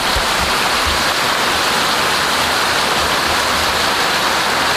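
Heavy rain mixed with hail pelting down, a steady, dense hiss.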